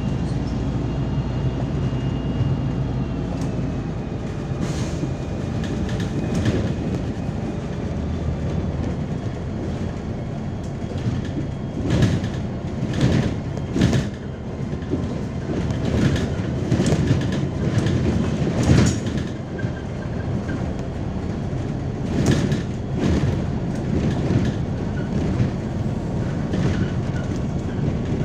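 MAZ-203 city bus heard from inside while driving: steady engine and drivetrain hum, with a high whine in the first few seconds. Repeated knocks and rattles from the body and suspension come over road bumps, bunched in the second half.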